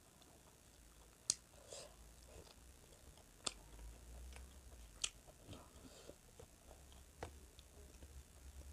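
Quiet close-up chewing and mouth sounds of someone eating chicken by hand, with four sharp clicks spaced about two seconds apart.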